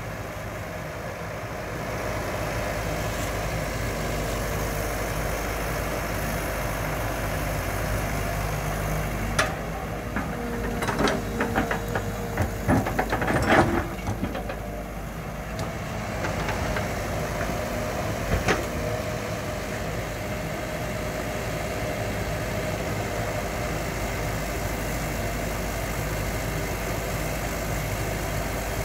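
Caterpillar E120B hydraulic excavator's diesel engine running steadily. A run of clanks and knocks comes about a third of the way in, and a single knock about two-thirds in, as the bucket works the dirt pile.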